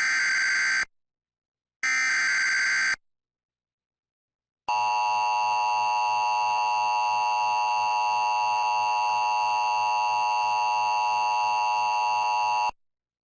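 Emergency Alert System tones: two SAME digital header data bursts of about a second each, one at the start and one about two seconds in. After a short silence comes the steady two-tone EAS attention signal, which lasts about eight seconds and cuts off sharply. This opening heralds a National Weather Service severe thunderstorm warning.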